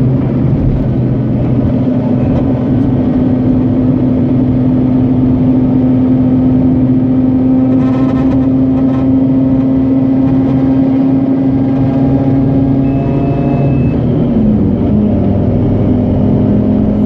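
Mazda RX-8's Renesis twin-rotor engine running at high rpm, holding a steady pitch before dropping to a lower pitch about 14 seconds in.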